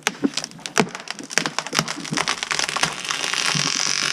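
Leyland cypress trunk cracking and splintering at the felling hinge as the tree goes over. Sharp cracks come faster and faster, then merge into a continuous crackling rush.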